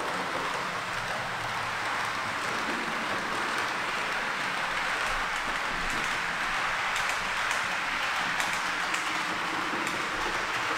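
H0-scale model train running on the layout's track: a steady hiss and rumble of the locomotive's motor and the metal wheels rolling on the rails, with a few light clicks over the rail joints in the second half.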